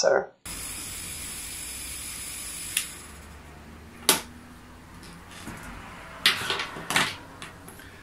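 Old refrigerator's hermetic compressor running as an air pump: a steady hum and hiss that drops in level about three seconds in. A sharp click comes about four seconds in, and a couple of short handling noises near the end.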